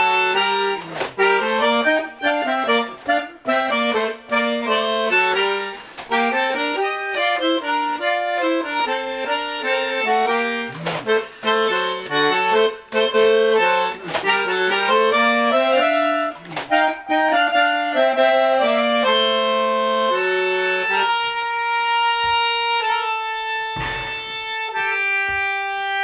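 Bandoneon playing a fast instrumental melody, settling into long held chords near the end, with a few sharp knocks along the way.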